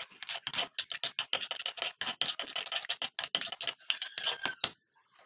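Metal spoon scraping and clinking against an earthenware bowl as a thick, wet cream paste is stirred in quick, rapid strokes. The stirring stops about a second before the end with a sharp clink.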